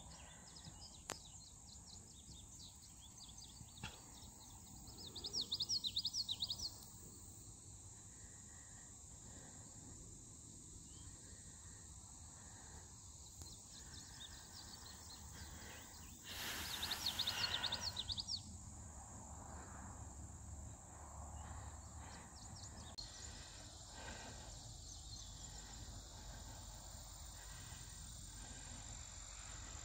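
Faint summer prairie ambience: a steady high-pitched insect chorus, with two short bursts of rapid bird chirping, about five seconds in and again about sixteen seconds in.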